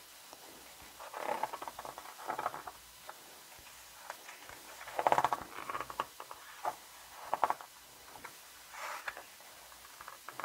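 Thick photo-book pages being turned by hand: a series of short paper rustles and slides, the loudest about five seconds in.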